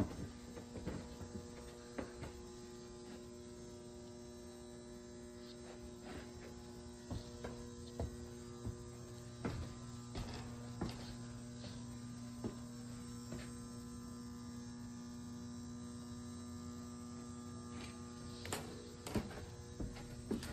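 Steady electrical mains hum with several even tones, under scattered light clicks and taps that come more often and louder near the end.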